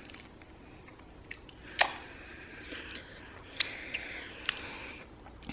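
A person eating apple pie: quiet chewing and mouth sounds, with one sharp click about two seconds in and a few softer clicks later.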